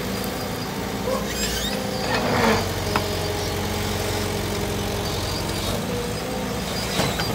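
Excavator's diesel engine running steadily at an even pitch, with a short louder rush of noise about two seconds in.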